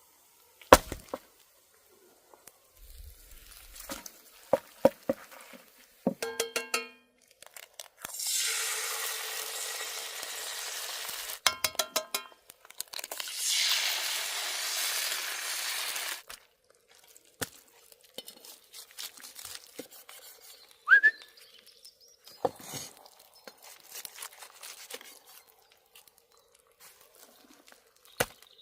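Food-prep handling sounds: scattered clinks and knocks of utensils and dishes, with two hissing stretches of about three seconds each in the middle.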